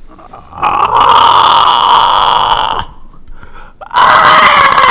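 A person making two long, loud, rasping vocal noises, each about two seconds long; the second starts about four seconds in.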